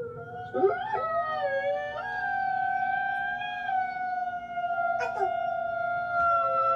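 Recorded wolves howling together: several long, overlapping howls that glide in pitch at first and then hold steady, with a short falling howl about five seconds in.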